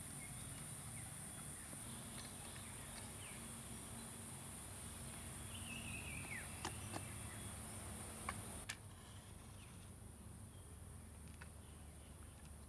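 Insects chirring steadily in a high, even band, with a few sharp clicks and a short falling call about six seconds in; the chirring drops in level just before nine seconds.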